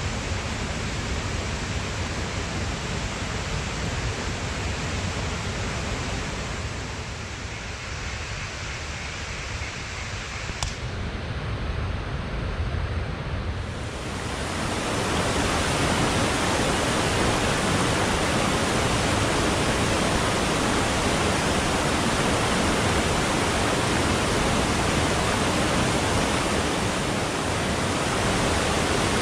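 Fast-flowing valley stream rushing, a steady dense noise. It thins for several seconds, then grows louder and fuller from about halfway through, with one small click in the quieter stretch.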